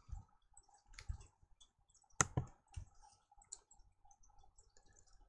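A few faint clicks and taps at a computer, the sharpest a little over two seconds in, with softer ones just after it.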